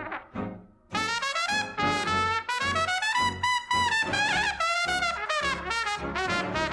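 Background music led by a brass melody over a pulsing bass line, with a short break just before a second in.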